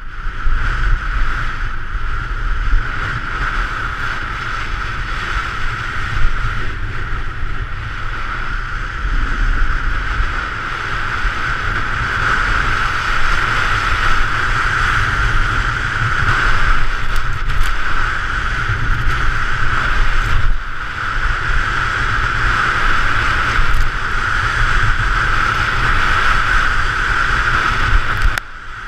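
Wind rushing over the microphone of a camera carried by a fast-moving downhill skier, mixed with the steady scrape and hiss of skis on packed snow. The noise holds steady throughout and dips briefly near the end.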